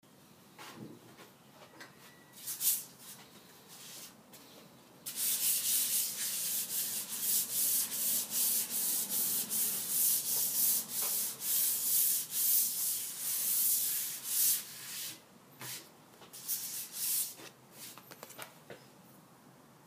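Hand sanding a finished wooden tabletop with a small red abrasive pad, a scratchy hiss of back-and-forth strokes. A few separate strokes at first, then steady sanding from about five seconds in, breaking into shorter strokes again a few seconds before the end.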